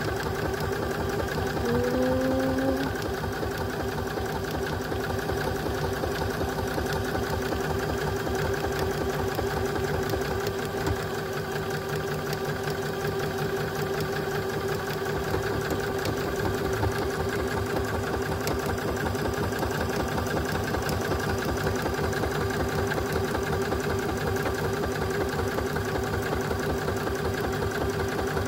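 Electric sewing machine stitching a buttonhole with its automatic buttonhole foot: a steady motor whine under the rapid, even clatter of the needle strokes.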